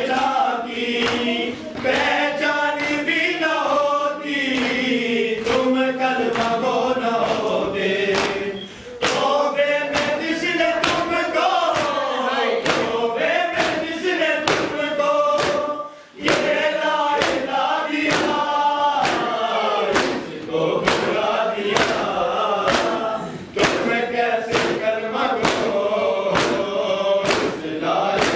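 Men's voices chanting a Muharram lament together, over the sharp slaps of open palms beating on chests (matam) in a steady rhythm.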